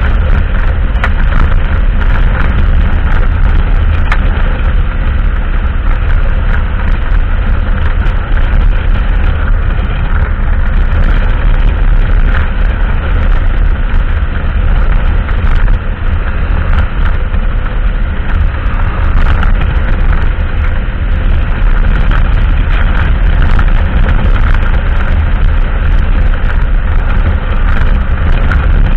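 Kasinski Mirage cruiser motorcycle riding at steady highway speed: the engine running steadily under a heavy low rumble of wind on the microphone, with no change in pace.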